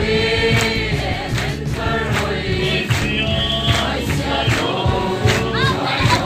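A group of voices singing a gospel hymn together, over a steady drum beat.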